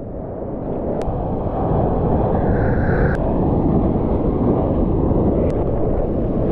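Ocean water rushing and churning right against the microphone in the surf, a dense low rumble with wind buffeting the mic. It swells over the first couple of seconds and then holds steady, with a few faint clicks where clips are spliced together.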